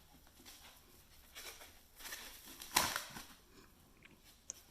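Faint, scattered rustling of a plastic-wrapped NAS unit being handled, with one short louder rustle about three seconds in.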